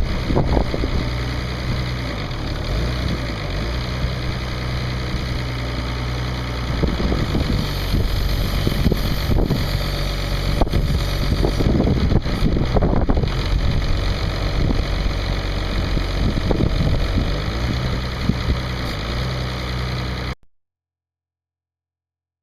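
International D282 six-cylinder diesel engine of a loader backhoe running steadily, with scattered knocks and rattles over it. The sound cuts off abruptly about twenty seconds in.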